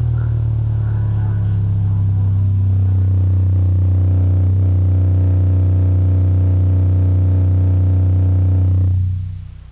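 A song is played loudly through an Altec Lansing computer speaker set's subwoofer, with its cone driven hard for a full excursion test. A deep bass note is held from about two seconds in and fades out about nine seconds in.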